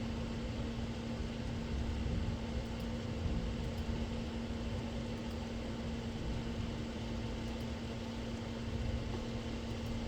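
Steady mechanical hum with a constant droning tone, over uneven low rumbling noise.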